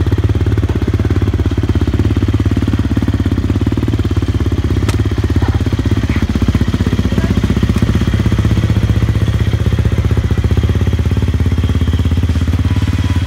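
An engine idling steadily close by, with a low, fast, even pulsing that holds level throughout.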